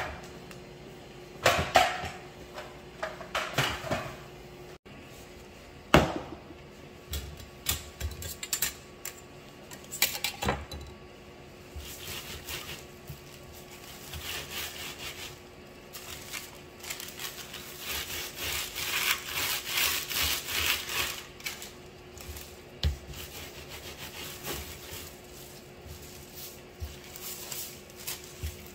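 Parchment paper rubbing and rustling as gloved hands roll a log of cookie dough on a plastic cutting board, with a few sharp knocks in the first several seconds and the loudest stretch of rubbing about two-thirds of the way in.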